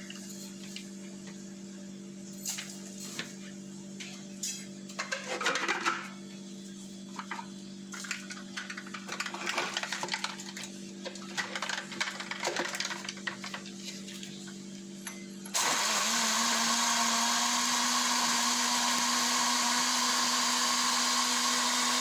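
Light knocks and clicks of handling, then about two-thirds of the way in an electric blender starts and runs at a steady speed to the end. It is blending a whole lemon with its peel, mint, ice, water and sugar into lemon-mint juice.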